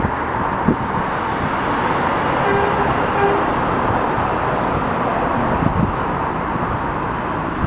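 Bombardier R142 subway train approaching on an elevated line, a steady rumble of wheels on the rails mixed with outdoor city noise.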